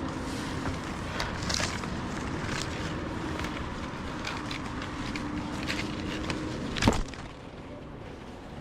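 Scattered rustles and light clicks over a faint low steady hum, with one sharp knock about seven seconds in.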